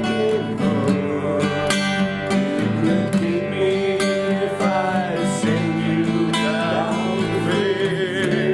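Acoustic guitar strummed steadily, with a voice singing over it in stretches.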